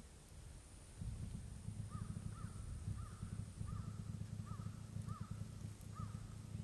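A common moorhen giving an even series of short calls, about two a second, starting about two seconds in, over a loud, continuous low rumble.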